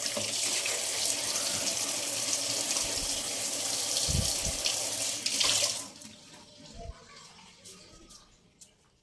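Kitchen tap running onto stacked plates in a stainless-steel sink as dishes are rinsed. The water shuts off about two-thirds of the way through, leaving a few faint knocks.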